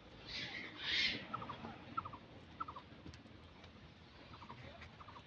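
Birds calling: two harsh, loud calls in the first second or so, then several short runs of three or four quick notes repeated every half second to second.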